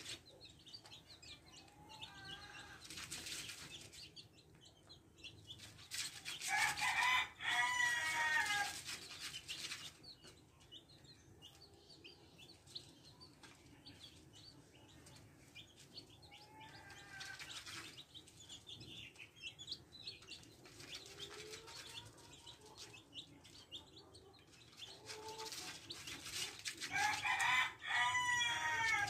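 Month-old black chicks of an Indonesian black breed peeping as they feed, with short calls throughout and two louder runs of peeps, one about a quarter of the way in and one near the end.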